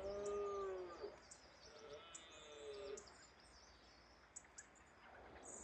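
Faint red deer stags roaring during the rut: one drawn-out call bending down in pitch at the start and another about two seconds in. Small birds chirp thinly and high above them.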